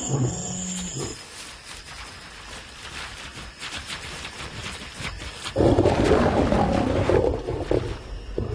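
Male lions roaring: deep roar calls in the first second, then a loud, harsh snarling outburst about five and a half seconds in that lasts about two seconds, as the dominant male reprimands the other male.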